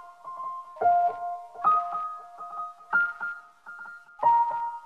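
Piano music: four slow chords struck in turn, each note ringing and fading before the next.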